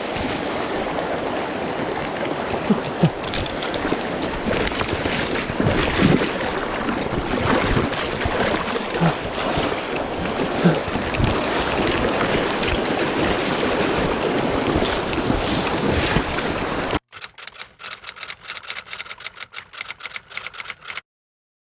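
Rushing water of a mountain stream with scattered splashes and knocks. It cuts off abruptly about 17 seconds in, giving way to a few seconds of rapid, evenly spaced ticking, then silence.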